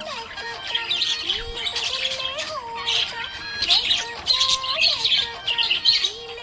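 Budgerigar chirping and warbling in quick bunches, over a background music tune.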